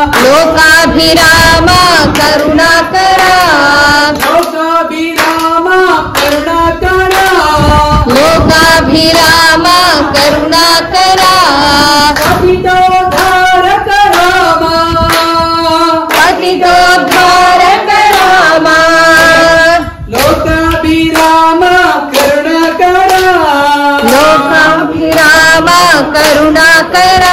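A small group singing a devotional Rama bhajan, with hand claps keeping a steady beat under the sung melody.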